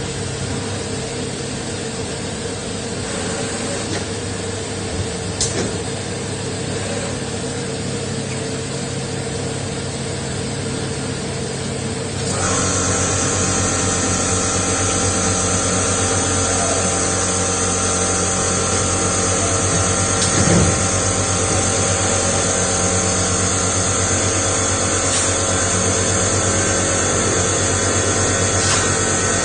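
CNC lathe running, a steady machine hum with several held tones. About twelve seconds in it gets suddenly louder and a high whine joins in, then holds steady.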